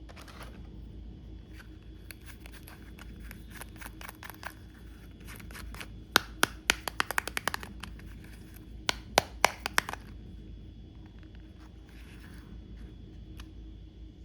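Hands handling small plastic toy pieces, making a run of quick clicks and taps. Two bursts of sharper, louder clicks come about six and nine seconds in.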